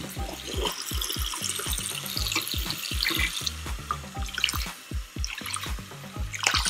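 Water running and splashing in a bathroom sink during washing, over background music with a steady low beat.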